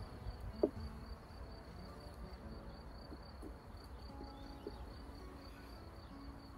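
Honeybees buzzing around an open hive, faint and varying in pitch as they fly, with one short knock about half a second in.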